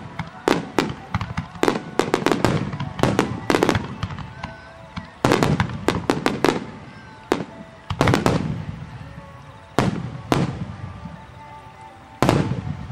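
Aerial firework shells bursting in a fast volley of sharp bangs, each trailing an echo, thinning after about four seconds to single bangs a second or two apart, with one loud bang near the end.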